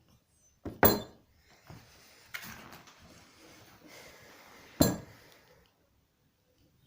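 Ratchet cable cutter being handled: two sharp metallic clanks about four seconds apart, the first about a second in and the second near the end, with scraping and rattling between them.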